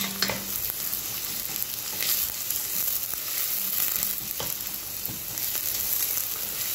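Diced onion sizzling steadily in olive oil in a stainless steel pot, being fried gently until translucent. A wooden spatula stirs it, scraping against the pot now and then.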